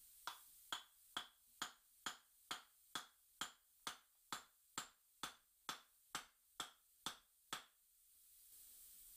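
Ratchet spanner clicking on a bolt of a cast engine bracket: a long run of sharp, faintly ringing clicks at a steady two a second, stopping near the end.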